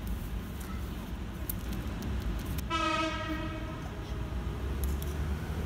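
A horn sounds once for about a second, a single steady tone that sags slightly at the end, over a steady low rumble of traffic.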